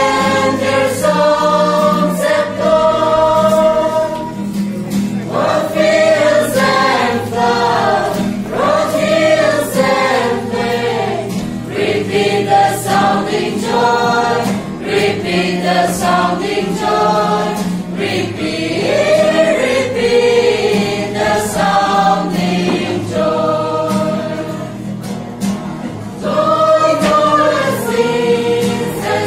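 A small group of voices, mostly women, singing a Christmas carol together to strummed acoustic guitar accompaniment.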